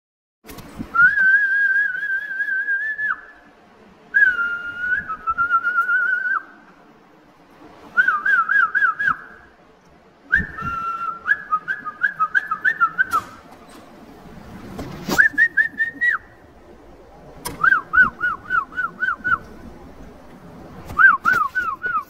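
A person whistling in short phrases: long held notes with a slight waver, alternating with runs of quick, rising-and-falling chirps, several a second.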